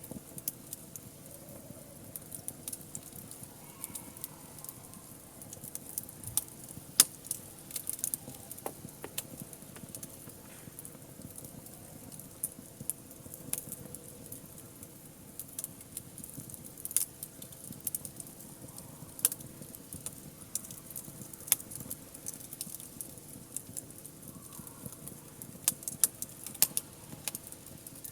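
Wood fire crackling, with irregular sharp pops and snaps, a few of them louder than the rest.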